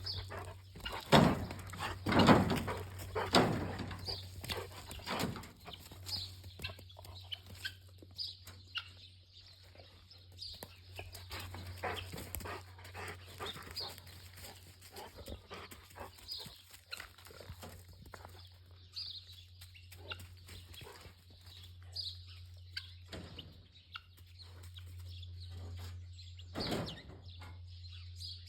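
Farmyard sounds: chickens clucking and small birds chirping at scattered moments, over a steady low hum. There are a few loud thumps in the first few seconds.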